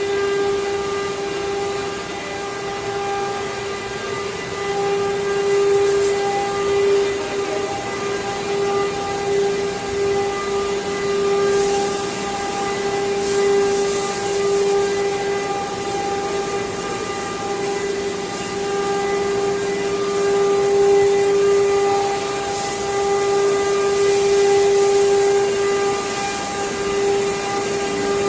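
CNC router spindle running with a steady high-pitched whine, with stretches of hissing cutting noise coming and going as the tool works the material.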